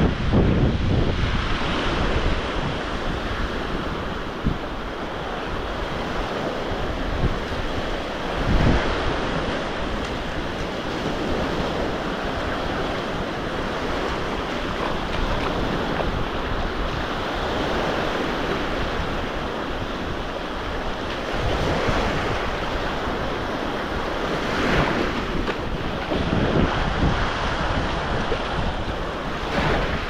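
Sea waves breaking and washing on a beach, a steady surf wash that swells louder every so often. Wind buffets the microphone with gusty rumbling.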